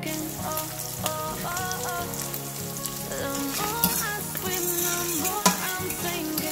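Chopped vegetables sizzling in oil in a stainless-steel frying pan as they are stirred with a utensil, with a couple of sharp clicks of the utensil against the pan in the second half. Pop music plays underneath.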